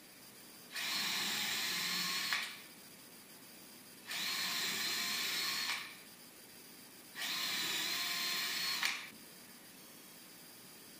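Cordless drill/driver running in three bursts of about a second and a half each, working into the corner joint of a pine box.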